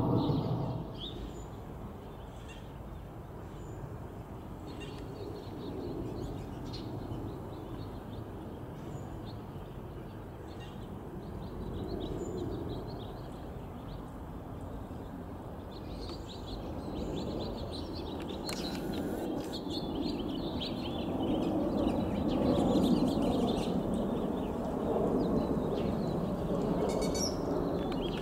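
Small birds chirping repeatedly over the low, distant rumble of a Boeing 777-300ER's jet engines passing high overhead. The rumble swells and fades, growing loudest in the last third.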